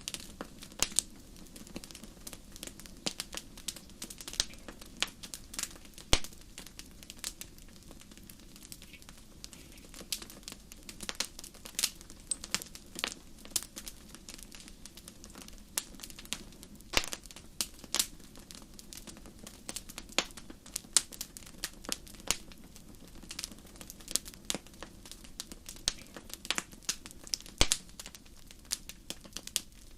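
Fire crackling: irregular sharp pops and snaps, several a second and varying in strength, over a low steady background.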